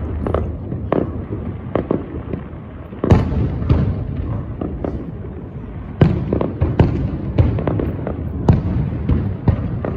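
Aerial fireworks bursting in quick succession: a dense string of bangs and cracks over a continuous rumble, with the loudest bangs about three seconds in and again about six seconds in.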